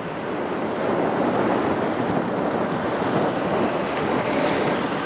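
Wind buffeting the microphone in a steady rushing noise, mixed with the road noise of a Scania G410 prime mover driving close by.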